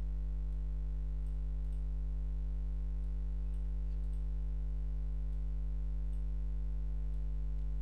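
A steady low electrical mains hum with a stack of overtones, unchanging throughout, with a few faint computer mouse clicks now and then.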